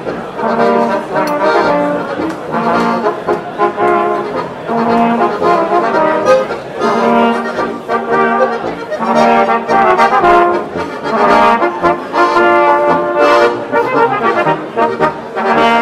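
Bavarian brass band playing a tune: trumpets over a tuba, with an accordion.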